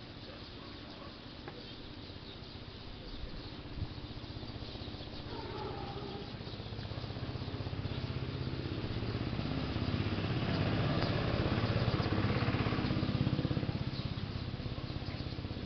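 A small engine running steadily with a fast, even pulse, growing louder from about halfway through and easing off again near the end.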